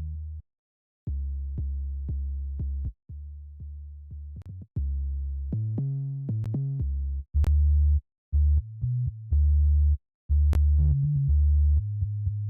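Dembow synth bass lines played one after another: low held bass notes in short phrases, with brief silences between them and small clicks at some note starts. In the second half the notes become shorter, choppier and louder.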